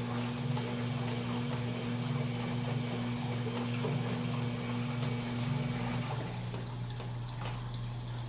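KMC washing machine running with water flowing into it over a steady low hum. One tone in the hum stops about six seconds in.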